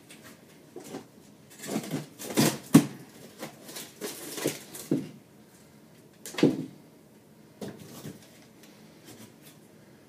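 Irregular knocks, scrapes and rubbing from gloved hands working inside the cabinet under a kitchen sink. The noises cluster in the first half, with one sharp knock after the middle and a few lighter ones after that.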